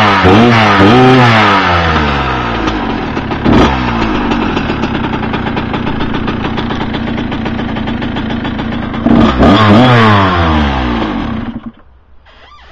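Kawasaki KX100's two-stroke single-cylinder engine blipped through a few quick revs, then idling steadily. It is revved again a few times near the end and then shut off.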